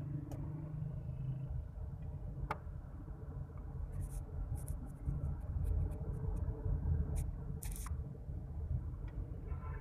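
Low, steady rumble of a car's engine and tyres heard from inside the cabin while driving slowly, with a few scattered light clicks and ticks.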